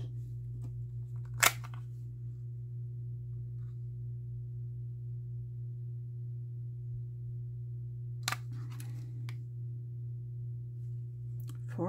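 Small hard clicks from handling a hinged metal bangle and a folding jeweler's loupe: one sharp click about a second and a half in, and a few softer clicks and handling noises near the end, over a steady low hum.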